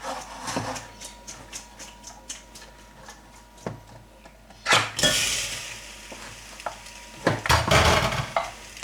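A spoon clinking and scraping in a frying pan as cooked pasta is put in with salmon and stirred. About five seconds in, a loud knock is followed by a steady hiss of sizzling, and there is a heavier clatter of the pan near the end.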